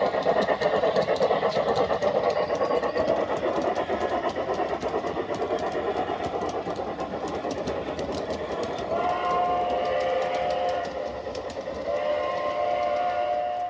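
Garden-scale model trains running, with a dense rapid clatter of sound-unit and wheel noise. About nine seconds in, a model locomotive's sound system gives two long blasts of a multi-note horn.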